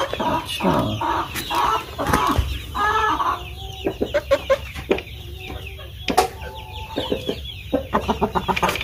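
Chickens clucking in short, repeated calls, with a few sharp clicks among them.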